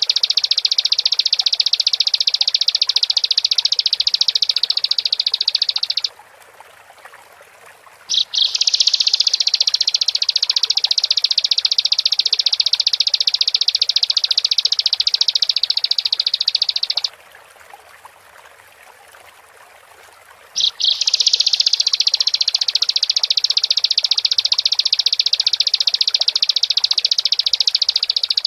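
Bar-winged prinia (ciblek) singing long, very rapid, high-pitched trills in three bouts: the first stops about six seconds in, the second runs from about eight to seventeen seconds, the third starts about twenty seconds in and carries on. The second and third bouts each open with a couple of sharp separate notes.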